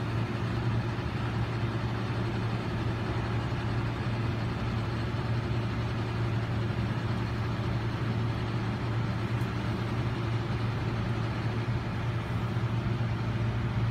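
A steady low mechanical hum with a strong, even drone and a faint hiss above it, unchanging in level.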